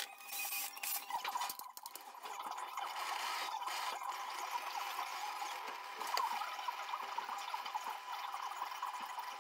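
A few knocks in the first two seconds, then a handheld butane blowtorch on a gas cartridge hissing steadily as its flame is held against the wooden edge.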